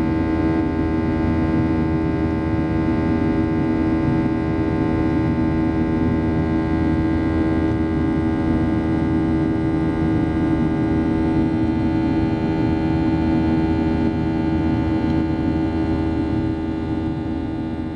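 Boeing 737-800 cabin noise in the climb, heard inside beside the wing: the CFM56-7B engines' steady drone with several steady humming tones on top. It fades out near the end.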